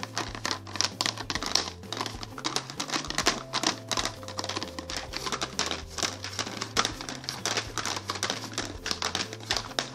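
Rapid, continuous clicking and rattling as the plastic screw lid of a large plastic jar of ring cereal is twisted loose, over background music.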